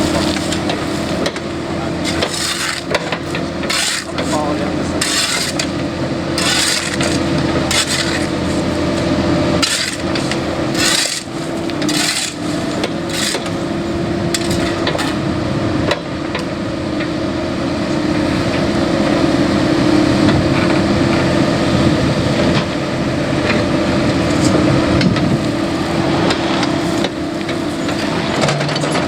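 Cat 308E mini excavator working: its diesel engine and hydraulics run with a steady hum while the bucket scrapes and knocks against broken road material. The knocks come as a string of sharp impacts through roughly the first half.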